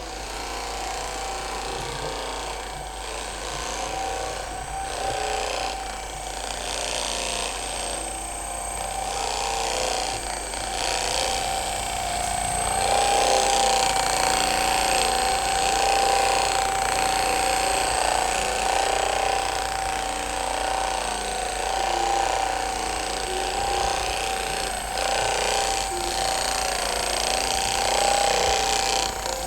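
Electric massager running steadily, a motor whine that holds one pitch and grows louder about halfway through.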